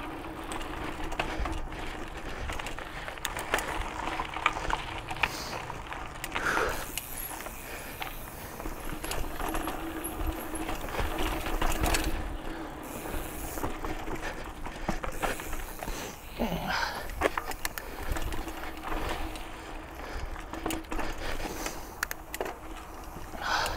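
Mountain bike ridden on a dirt trail: a steady rattle of chain, frame and tyres over the ground, with many scattered clicks and knocks.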